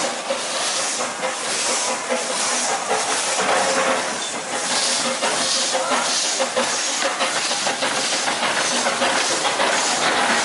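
Katie, a 15-inch gauge steam locomotive, hissing steam from its open cylinder drain cocks in regular puffs about every 0.7 s as it moves slowly off.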